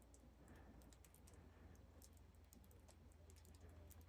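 Near silence: a low steady hum with faint, scattered light ticks.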